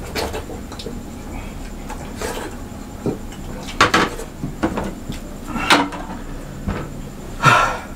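Tableware being handled during eating: several short clinks and knocks of plastic bowls and plates on a table, including a plastic drink bottle set down on a plate.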